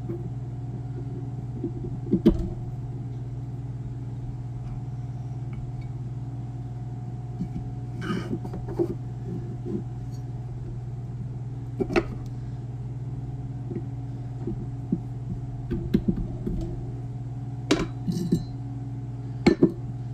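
Metal transmission parts, a clutch drum and piston, knocking and clinking against a turned aluminium piston-installer ring and the metal bench as they are handled. The clinks are scattered every second or two over a steady low hum.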